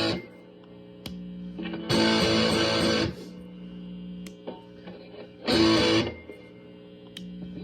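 Electric guitar, a Les Paul Junior copy, played through a DIY fuzz pedal into a Fender Super Champ amp, with the pedal's boost switch in the down position: two distorted strummed chords about two seconds and five and a half seconds in, each held for about a second and then cut short, with a quieter lingering note between.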